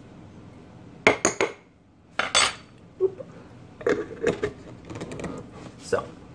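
Several sharp clinks of a spoon against a glass jar about one and two seconds in. From about four seconds, the jar's screw-top lid is put on and twisted shut with a run of small rattling clicks.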